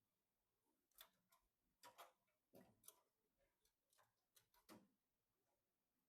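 Faint, irregular clicks and taps of computer parts being handled during PC assembly, about a dozen of them bunched in the middle.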